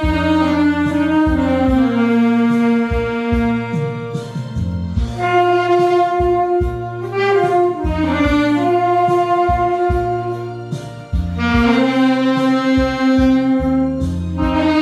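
Saxophone playing a slow melody of long held notes with smooth slides between pitches, over a backing track with a steady low bass and drum beat.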